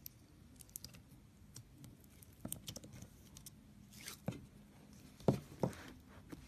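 Slime in a plastic tub being pressed and turned out, making scattered small sticky clicks and wet pops, with two louder pops about five seconds in.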